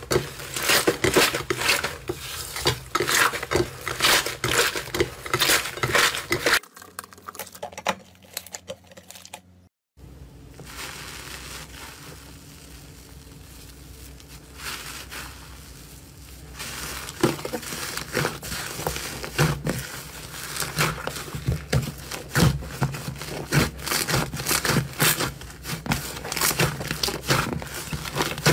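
Hands squeezing, stretching and pressing slime, with dense sticky crackling and popping of air pockets. After a brief gap about ten seconds in, it turns to a quieter, even hiss for several seconds, then the crackling returns.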